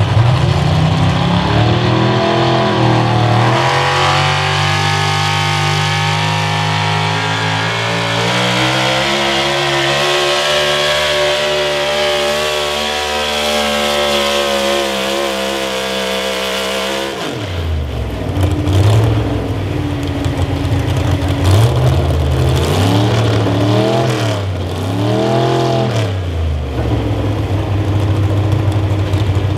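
Super stock 4x4 pulling truck's engine at full throttle through a pull, revs climbing and holding high for about fifteen seconds, then cutting off sharply. After that it is revved up and down several times in short bursts and settles to idle.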